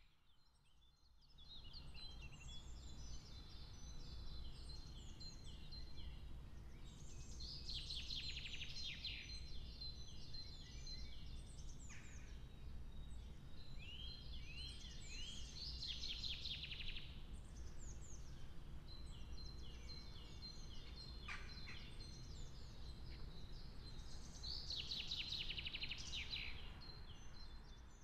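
Small songbirds singing, with a song that ends in a rapid trill repeated about every eight seconds, over a low steady rumble.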